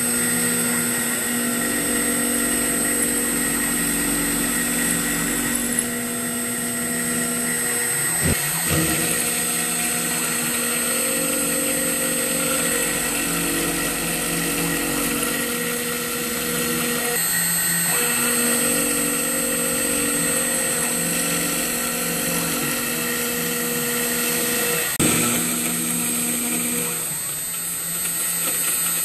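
CNC router spindle at 7,200 RPM milling a grid of grooves into an aluminum plate with a 7/64-inch bit: a steady high whine over the cutting noise, with a lower hum that comes and goes. The sound breaks off and changes abruptly three times.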